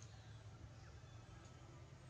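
Near silence: faint background with a low steady hum and a few faint short high chirps.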